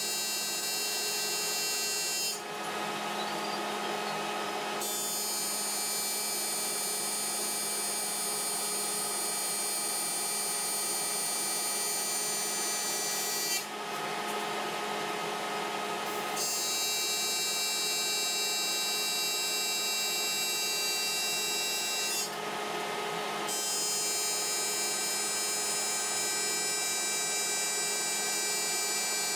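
AC TIG welding arc on aluminum buzzing steadily. The arc breaks off three times for a second or a few seconds, around two seconds in, midway and about three quarters through, then strikes again.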